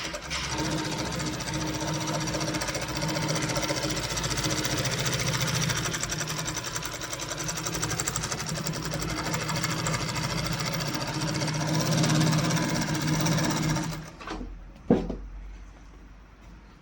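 ZY3156 feed-off-arm zigzag sewing machine running at speed, stitching with a fast, even rhythm. It stops about three-quarters of the way through, followed by a single sharp click.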